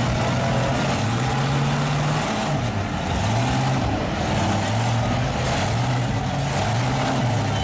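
Lifted pickup's engine running hard under load as it pulls in a truck tug-of-war, its revs sagging and rising again several times as it strains against the other truck.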